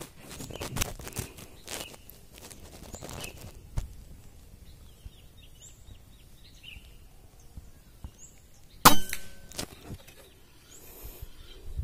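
A single air-rifle shot about nine seconds in: a sharp crack with a brief metallic ring, a shot that downed a green pigeon. Before it, light rustling and handling noises and a few faint bird chirps.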